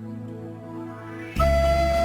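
Background music: soft sustained chords, then about a second and a half in a louder passage enters with a long held high note over a low bass.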